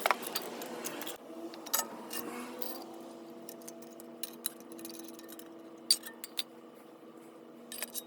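Metal tools and small-engine parts clinking and clicking against each other and the bench during the hand teardown of a small engine, about a dozen separate sharp clinks. A faint steady hum runs underneath from about a second and a half in.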